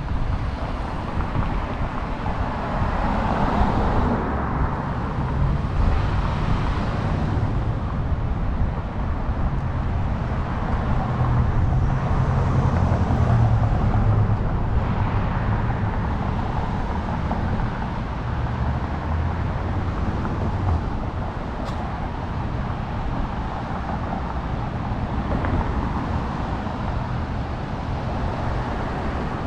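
Street traffic: cars driving past one after another, a steady wash of engine and tyre noise. A low engine drone is strongest in the middle stretch.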